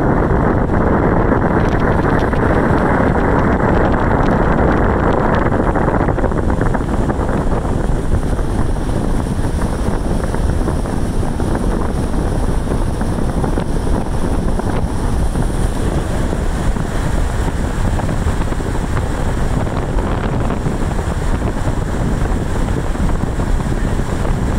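Wind buffeting the microphone of a moving car, with steady road and engine noise underneath. The rush is heaviest for the first six seconds or so, then eases a little.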